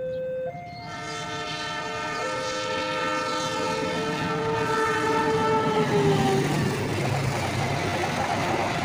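Diesel locomotive's horn sounding one long blast of several tones together, its pitch sagging slightly near the end. As the horn stops, the rumble of the passenger train passing close by takes over.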